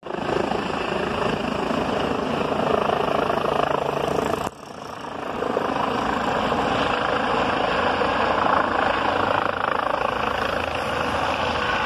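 Helicopter descending to land on a rooftop helipad, its rotor and turbine noise steady and loud. The sound drops away suddenly about four and a half seconds in and comes back within a second.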